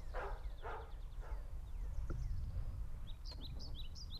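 Wind rumbling on the microphone, with a few short rushes of noise in the first second and a half. A small bird chirps in quick, repeated, sharply rising-and-falling notes over the last second.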